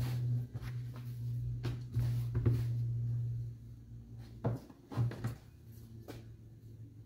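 Hands handling cut pieces of welding-glove leather and small tools on a wooden workbench: several light knocks and rubbing sounds. Under them is a low hum that fades out about four seconds in.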